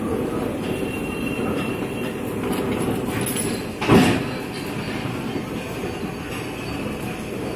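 Large planer machine running with a steady mechanical rumble and clatter, and a single loud clunk about four seconds in.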